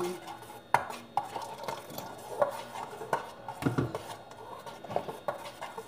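A spoon stirring a thick tomato-paste sauce in a metal bowl, with irregular clinks and scrapes of the spoon against the bowl.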